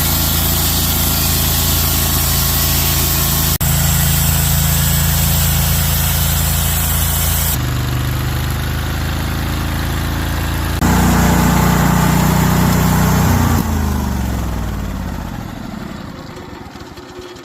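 An engine running steadily at a constant speed, heard in a few short takes that change abruptly. Near the end it slows down, its pitch falling and its sound fading as it comes to a stop.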